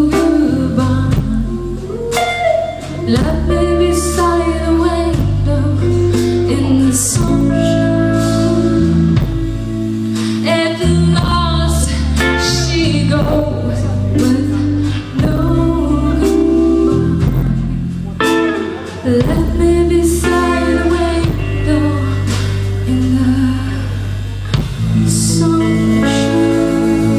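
A live band playing a song, with guitar over a steady bass line.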